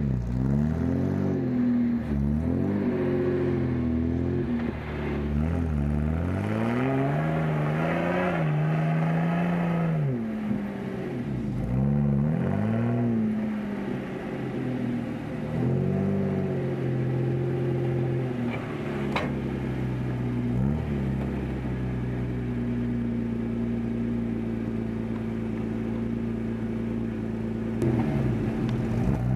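Off-road truck engine revving up and down again and again as the truck works through deep snow, then running at a steady speed for several seconds before rising again near the end. A single sharp snap comes about two-thirds of the way through.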